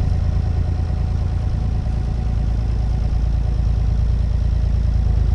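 Wind buffeting the microphone: a steady low rumble that flutters without pause.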